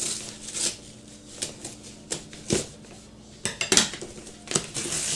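Scissors snipping through a brown kraft-paper mailer in a series of irregular sharp cuts, with paper rustling as the package is handled and pulled open.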